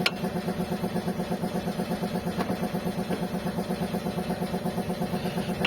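Fiat Tipo engine idling steadily with an even, rapid pulse. There is a single sharp click right at the start.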